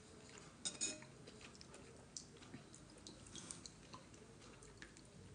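Faint clinks of a spoon against a soup bowl: a few light, scattered taps, the loudest just under a second in, over an otherwise near-silent room.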